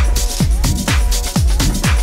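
Electronic dance music with a steady kick drum, about two beats a second, over held synth notes.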